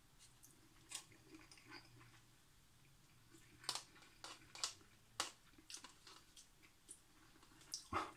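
Faint sounds of a person eating instant noodles: chewing and slurping with scattered short clicks and smacks, busiest in the middle and again near the end.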